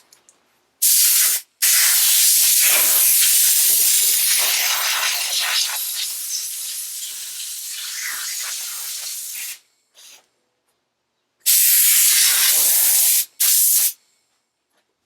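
Pressurised jet hissing in blasts with abrupt starts and stops: a short one, then a long one that slowly fades over about eight seconds, then two shorter ones near the end.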